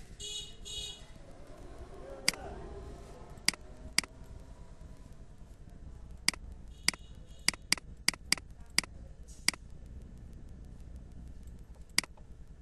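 Computer mouse clicks: about a dozen sharp single clicks at irregular times, several close together in the middle, over a low steady hum. Two short high buzzing bursts sound near the start.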